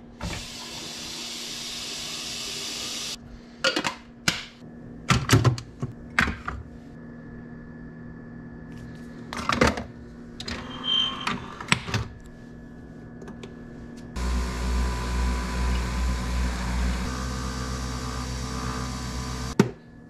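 A kitchen tap runs into a glass for about three seconds, followed by a series of sharp clicks and knocks from handling the coffee machine and its capsule. About fourteen seconds in, a Breville Nespresso coffee machine brews with a loud, steady low hum and rumble that stops just before the end.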